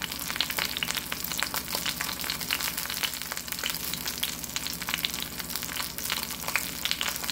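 Thick beef steak sizzling in bacon fat in a cast iron skillet: a steady, dense crackle of small pops and spits as it sears.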